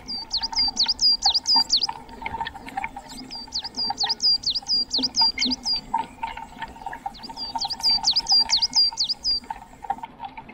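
A songbird singing: three runs of six to eight quick, sharp whistled notes, about four a second, with short pauses between the runs. A faint steady hum runs underneath.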